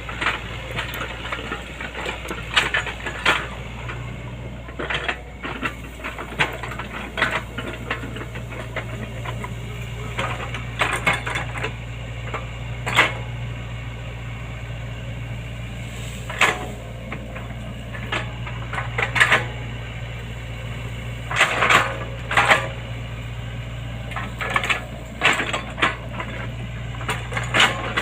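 Hydraulic excavator working: its diesel engine runs with a steady low hum while sharp knocks and cracks come at irregular intervals, several seconds apart or in quick clusters.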